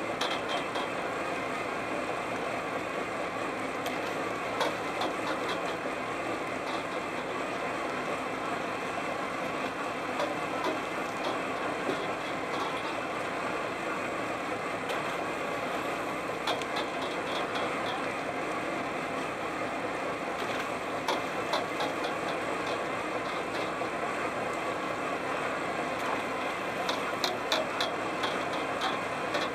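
A seine fishing boat's engine running steadily, with short bursts of sharp clicking every several seconds.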